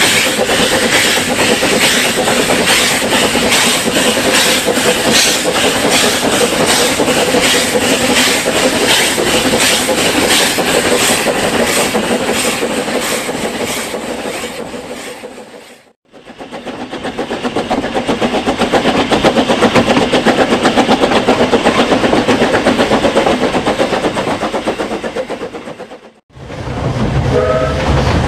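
Narrow-gauge steam train running, heard from an open carriage window close behind the locomotive: a steady rhythm of beats over a rumble of wheels on rails. The sound breaks off twice where it is cut, and a faint tonal squeal comes in near the end.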